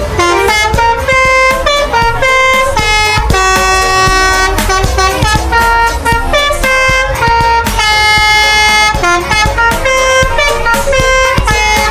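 A Basuri telolet multi-tone bus horn playing a melody: a run of held horn notes that step from pitch to pitch, some short and some held for a couple of seconds, with brief breaks between them. A low rumble runs underneath.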